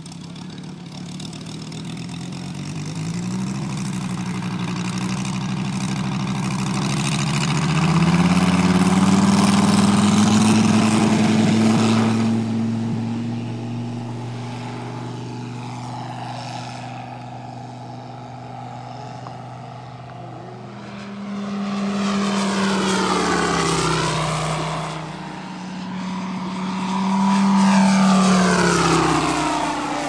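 Moki 250 radial engine of a giant-scale C-ARF Corsair RC model. Its note climbs steadily as the throttle opens for the takeoff run, peaks, and drops away abruptly near the middle. It then swells and fades twice more as the plane passes overhead, the pitch sweeping down as it goes by.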